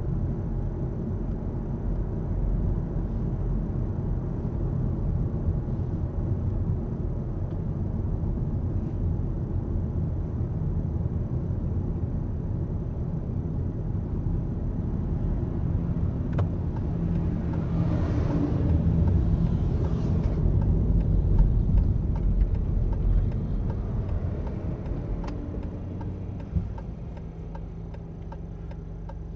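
Road and engine noise heard from inside a moving car, swelling briefly about two-thirds of the way through, then dropping as the car slows to a stop near the end.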